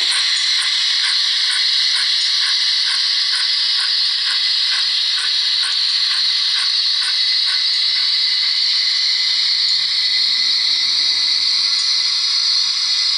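Model steam locomotive sound, played by a Zimo sound decoder through a small speaker in the tender of a Hornby GWR 28xx 2-8-0: a steady hiss of steam with a rapid, even ticking that stops about two thirds of the way through, and a faint low rumble near the end.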